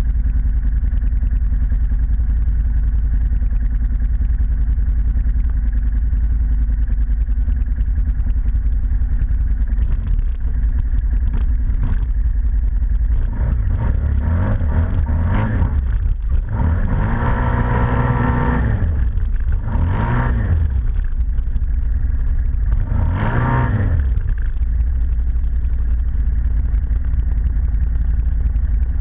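ATV engine running at low revs, with a few throttle bursts in the middle where the pitch climbs and falls back, then settling again.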